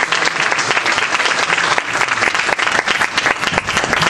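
Audience applauding: steady, dense clapping from many hands in a hall.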